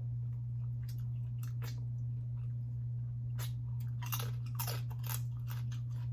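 Close-miked eating of cold blue crab: irregular crunching, cracking and wet chewing, busiest in the second half, over a steady low hum.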